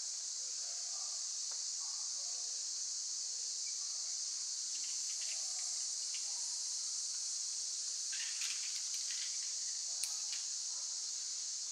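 Steady high-pitched chorus of insects in the woods, with a few light clicks near the end, the sharpest about ten seconds in.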